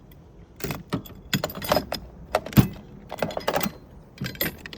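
Metal hand tools clinking and clattering against each other as they are picked up and set down in a toolbox drawer: a quick run of sharp clinks, loudest about halfway through.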